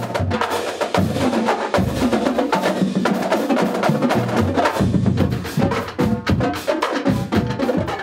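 Marching drumline of snare drums and bass drums playing a fast cadence: a dense, continuous run of sharp stick strokes with low drum hits underneath.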